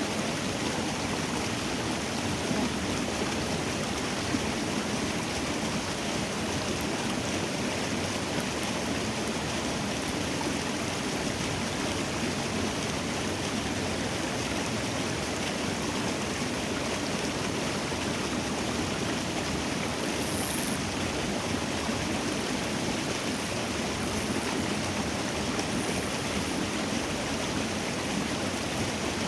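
Water flowing in a small rice-field irrigation ditch: a steady, even rushing.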